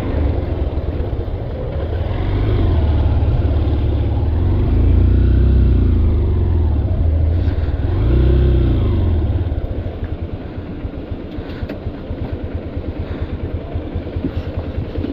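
Motorcycle engine running as the bike rolls slowly downhill, its pitch rising and falling with the throttle. It gives a brief rev about eight seconds in, then settles to a steady idle.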